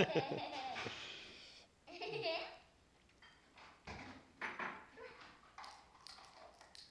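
A small child's voice in short bursts of babbling and squeals, with quiet gaps between; the loudest burst comes right at the start.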